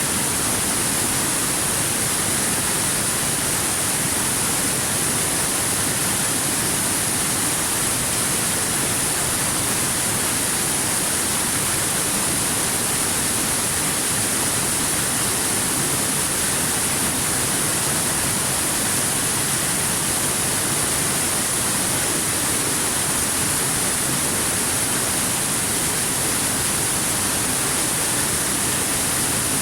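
Waterfall: a steady, unchanging rush of falling water with a bright hiss on top.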